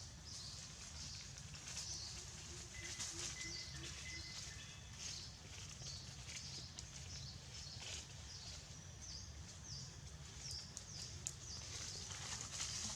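Many short, high-pitched animal chirps and squeaks repeating throughout, with a brief steady whistle-like call about three seconds in, over a low steady rumble.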